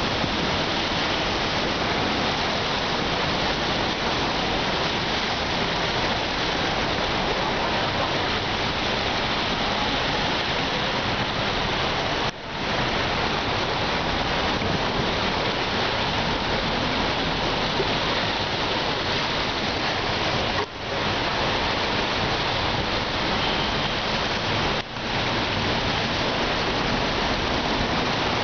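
Floodwater rushing and splashing along the side of a bus as it ploughs through a flooded road: a loud, steady wash that drops out briefly three times.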